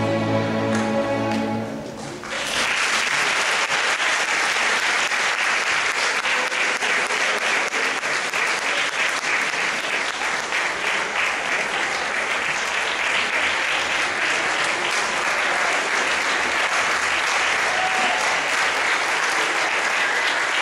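An orchestra holds a final chord that fades out about two seconds in, then an audience applauds steadily.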